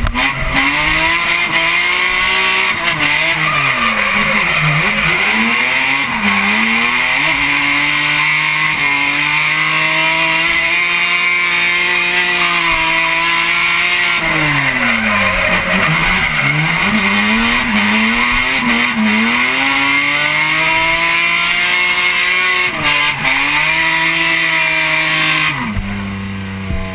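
BMW S54 straight-six in an E36 drift car, heard from inside the cabin, revving hard, its pitch dropping and climbing over and over as the throttle is worked through the drift, with tyre squeal underneath. Near the end the engine eases off to a lower, steadier note and the squeal stops.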